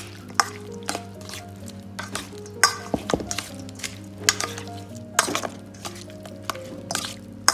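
Metal spoon scraping and clinking against a stainless steel mixing bowl in irregular strokes as chopped chicken is tossed in sauce. Soft background music with held notes runs underneath.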